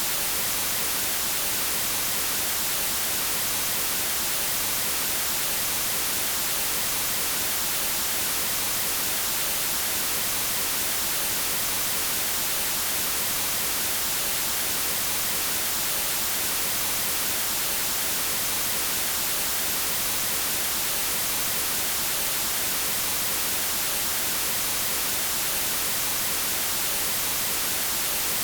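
Steady white noise test signal at −20 dBFS, an even hiss across the whole frequency range, used for calibrating audio equipment.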